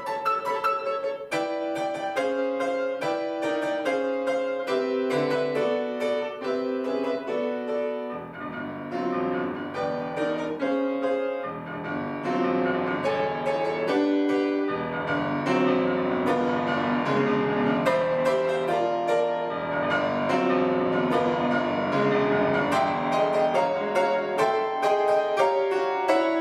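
Solo piano playing a classical piece: a line of single notes stepping downward, then fuller passages of overlapping, ringing notes.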